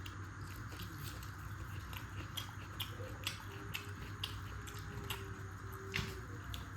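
Close-miked mukbang eating sounds: someone chewing a mouthful of chicken curry and rice, with irregular small wet clicks and smacks.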